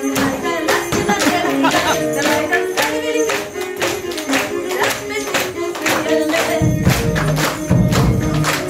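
Live folk-band recording of a fast polka: a steady, driving percussion beat under a melody line, with a deep bass part coming in about two-thirds of the way through.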